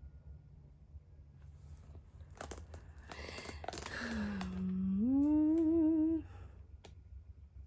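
Handling clicks and rustling, then a single hummed, voice-like tone of about two seconds. It dips, slides up and wobbles at the top, then cuts off.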